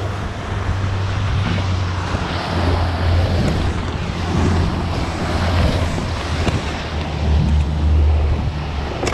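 Twin Mercury outboard motors running steadily at speed, a low drone under the rush of the boat's wake, with wind buffeting the microphone.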